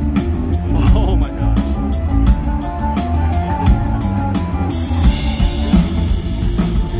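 Live rock band playing an instrumental intro on electric guitar, bass guitar and drum kit, over a driving drumbeat. About two-thirds of the way through, a steady high wash comes in over the top.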